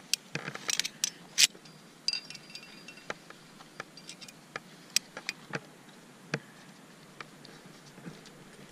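Metal climbing gear on a trad rack, carabiners and cams, clinking and clicking together in a quick irregular jangle. It is busiest in the first second and a half, with a short metallic ring about two seconds in, then scattered single clinks.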